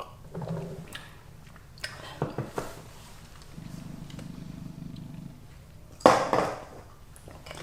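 Close-miked eating: a few light clicks of utensils against dishes about two seconds in, then one loud, brief, noisy eating sound about six seconds in. Under it runs a low hum that comes and goes.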